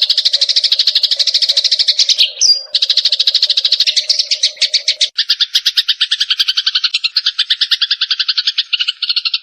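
Songbirds calling in fast, unbroken chattering trills of about ten notes a second, with a short whistled slur about two and a half seconds in. About five seconds in, the trill switches abruptly to a different, lower-pitched rapid trill.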